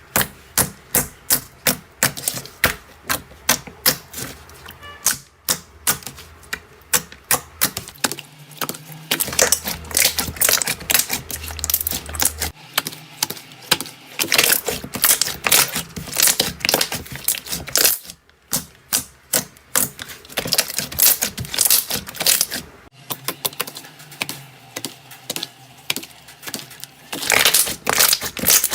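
Slime being pressed and squeezed, giving off rapid sharp clicking and crackling pops, several a second, with short pauses.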